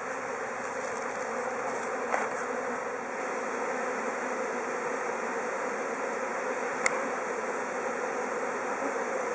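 A dense mass of honeybees buzzing steadily around an open hive box, with two small clicks about two seconds and seven seconds in.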